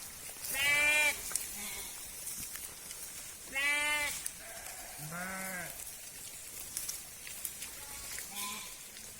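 Sheep bleating: wavering calls about half a second in and just before four seconds, then a deeper one just after five seconds. A fainter short call comes near the end.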